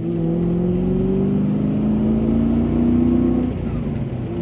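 Ford Mustang's 4.6-litre V8 accelerating hard, its pitch rising steadily, then dropping at an upshift about three and a half seconds in and pulling again in the next gear.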